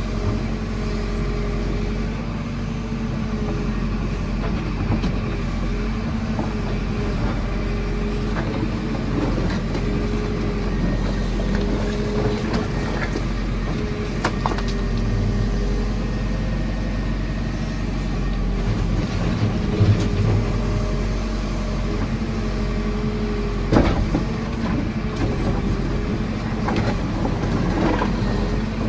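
JCB 4CX backhoe loader's diesel engine running steadily while the back bucket works, its note wavering up and down under the load of the hydraulics. A few sharp knocks come through, about a third of the way in and twice more later, as the bucket strikes the rubble.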